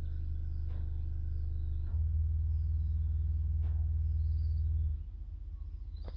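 Deep, steady bass played through homemade two-way tower speakers' woofers, stepping up louder about two seconds in and dropping back near the end.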